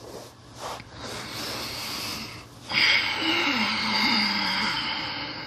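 A person's deep audible breath: a softer inhale, then from about two and a half seconds in a longer, stronger exhale, with a faint voiced sigh that falls in pitch.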